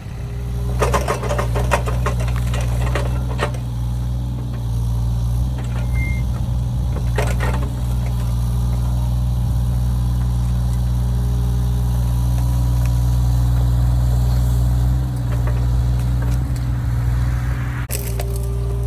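Mini excavator's diesel engine running steadily under work, with a run of knocks and clanks in the first few seconds, another about seven seconds in, and a short loud burst near the end.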